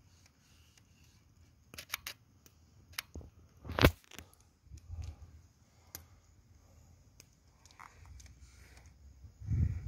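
A wood campfire crackling, with a scattering of sharp pops. The loudest pop comes a little under four seconds in, and a few soft low thumps fall in between.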